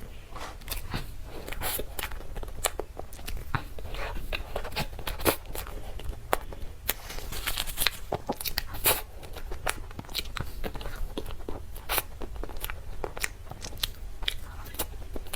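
Close-miked eating sounds: a person biting into and chewing dessert, with many irregular sharp clicks and smacks.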